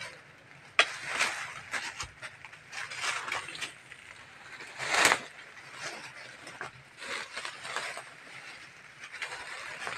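Dry leaves and brush rustling and crackling irregularly as someone pushes and climbs through undergrowth, with a sharp knock just under a second in and a louder swish of foliage about halfway through.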